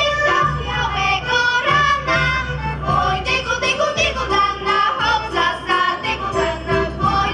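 Girls' folk ensemble singing a Polish folk song together, with accordion accompaniment, amplified through stage loudspeakers.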